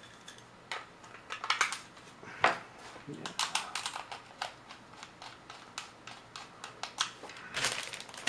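Scattered clicks and small plastic clatters of a handheld multimeter being handled as its batteries are fitted and the battery compartment closed, with a denser run of clicks near the end.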